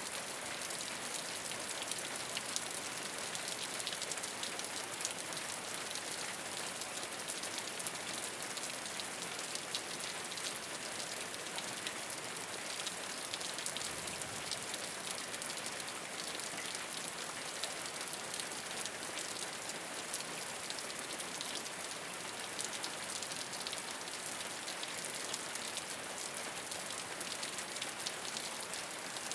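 Steady rain falling on a rooftop: an even hiss of rainfall dotted with many small, sharp drop hits, unchanging throughout.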